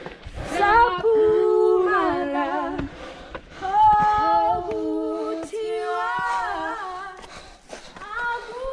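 Unaccompanied singing, with no instruments: voices holding long, wavering notes in several phrases with short breaks between them.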